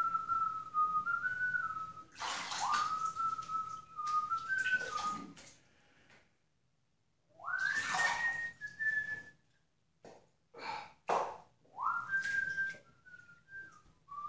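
A person whistling a slow, simple tune in four phrases of a few seconds each, the pitch stepping up and down a little, with short pauses between phrases and a few brief noises in one of the gaps.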